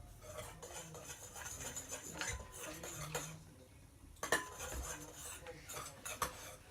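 A utensil stirring homemade slime in a bowl, with irregular clinks and scrapes against the bowl's side.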